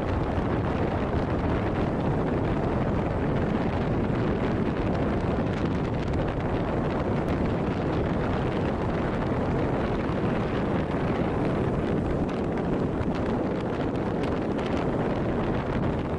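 Steady wind rushing over the microphone on a moving Honda Monkey 125 motorcycle, its small single-cylinder engine running underneath.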